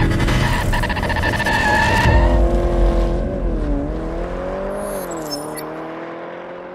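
Race-car sound effect: a loud, noisy engine blast for about two seconds, then a pitched engine tone that wavers up and down and gradually fades away.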